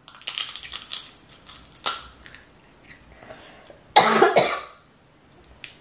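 Mouth sounds of eating seafood: quick wet smacking and sucking clicks for about a second, a single sharp click a little later, then about four seconds in one loud, short cough into the hand.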